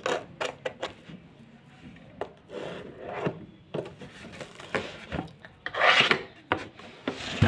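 A cardboard shipping box being cut open by hand: irregular scraping and rubbing on the cardboard, with scattered sharp clicks and a louder rasp about six seconds in.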